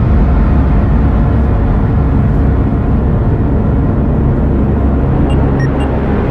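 A loud, steady low rumble, with a few short electronic beeps near the end.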